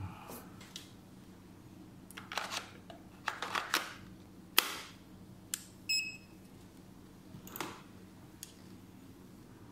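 Sharp plastic clicks and knocks as an ink cartridge is fitted into a handheld inkjet printer, the loudest snap a little before the middle. About six seconds in there is a short high electronic beep from the printer as it is switched on, then a couple more handling knocks.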